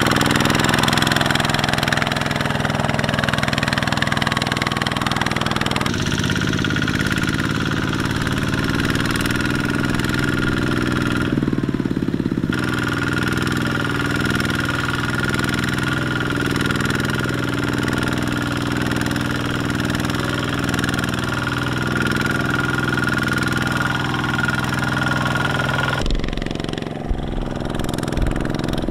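Two-wheel walking tractor's single-cylinder diesel engine running steadily under load as it hauls a loaded trailer. Its tone shifts abruptly a few times.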